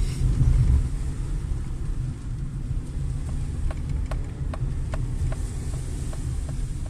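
Low, steady rumble of a car's engine and tyres heard from inside the cabin while driving. From about two and a half seconds in, a run of light clicks comes at roughly four a second, then fades near the end.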